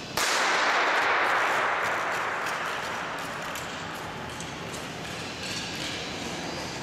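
Starting shot for a short-track speed skating start: a sudden sharp report about a quarter second in, with a long fading tail over the next two to three seconds in the ice arena. Faint scrapes of skate blades on the ice follow as the skater sprints away.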